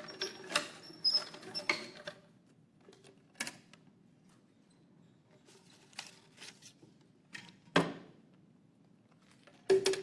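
Wooden raffle drum being handled and turned. A burst of clicks and short squeaks comes in the first two seconds, then scattered single clicks and knocks, the two loudest about eight seconds in and just before the end.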